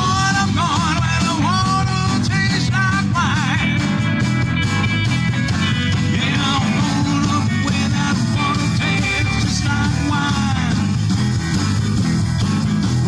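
Live rock and roll band playing an instrumental stretch: a lead line of bent, wavering notes over a steady bass and drum backing.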